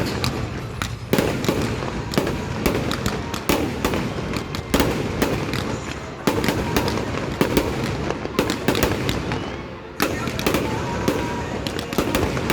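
Fireworks display going off in a continuous run of bangs and crackles, with fresh loud volleys about a second in, near five seconds, around six seconds and near ten seconds.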